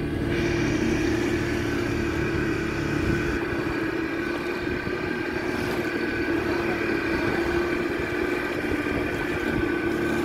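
A boat's engine running at a steady speed: a constant hum with higher steady tones above it, over a hiss, a little louder from about half a second in.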